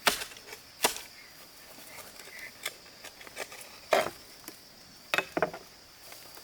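Five sharp knocks at uneven intervals, two close together near the end, over a steady high insect drone.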